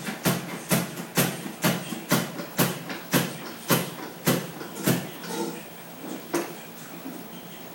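Straight razor being stropped on a leather strop hanging from the barber chair: a sharp slap about twice a second, slowing and stopping after about five seconds.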